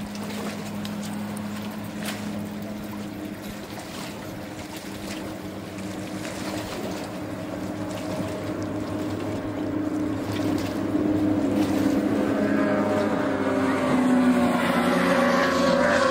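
Racing powerboat engines running flat out. Their steady drone grows louder through the second half as the boats draw nearer.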